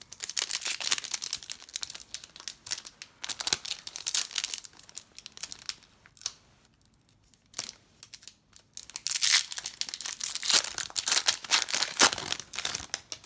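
Plastic wrapper of a trading-card pack being torn open and crinkled. There are two stretches of crackling with a quiet pause of about two seconds between them.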